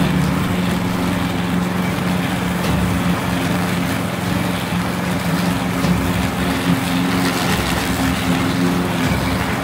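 Husqvarna LC 48V walk-behind lawn mower's Briggs & Stratton 650-series four-stroke engine running steadily under load as the mower cuts grass.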